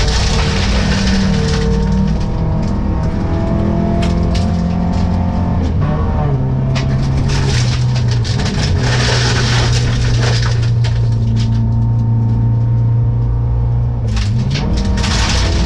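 Rally car engine heard from inside the cabin, driven hard on a gravel stage, its pitch holding steady and stepping between levels with a rise in revs near the end. Sharp ticks of gravel hit the car's body and underside throughout.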